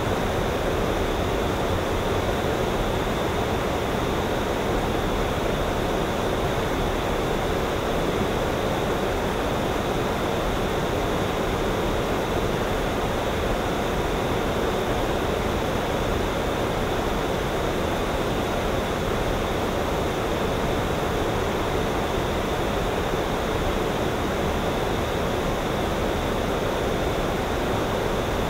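A steady, unbroken rushing noise, fullest in the lower middle, with no distinct events in it.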